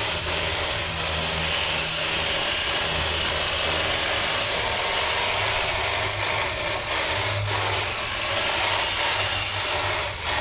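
Small-engine hedge trimmer running steadily, dipping briefly near the end.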